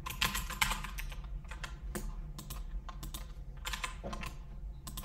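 Computer keyboard typing: a quick run of keystrokes in the first second, then scattered single key presses and short runs.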